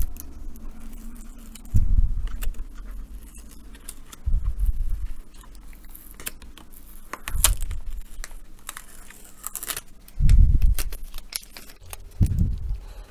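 Small screwdriver work on a laptop's heatsink screws: light metallic clicks and ticks of the driver and tiny screws, with a handful of dull low thumps from handling the open laptop on the bench.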